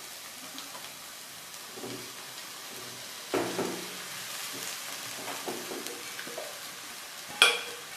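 Egg frying in a hot kadhai gives a steady soft sizzle while boiled rice is tipped in from a steel bowl and scraped out with a spatula. There are two sharp knocks of spatula on bowl or pan, one about three and a half seconds in and a ringing metallic one near the end.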